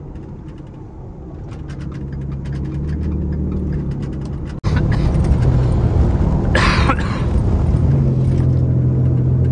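Ford F-150's naturally aspirated V6 engine running under way, with road noise from inside the cab. The sound grows louder over the first few seconds, cuts out for an instant, then comes back louder and steady, with a short hiss about two seconds later.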